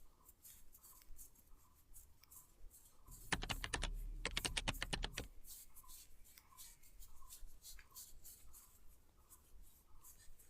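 Light tapping and clicking, with a fast, dense run of rapid taps lasting about two seconds, starting about three seconds in.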